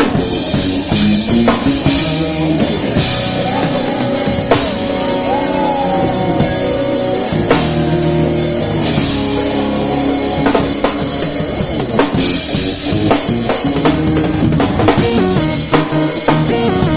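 A live rock-style band playing, with a drum kit driving a steady beat under sustained guitar and keyboard-like chords.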